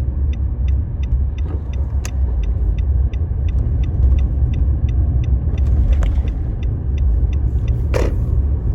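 Inside a car's cabin: the car's steady low rumble, with a turn signal ticking evenly about three times a second. A few short knocks, the loudest near the end.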